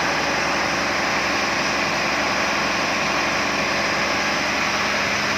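Cummins KTA38-M2 marine diesel main engine, a turbocharged V12, running steadily on test after the seal of its sea water cooling pump was replaced.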